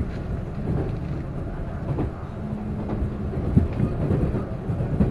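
Train running along the track: a steady low rumble with a few sharp knocks, the loudest about three and a half seconds in, and a brief low hum near the middle.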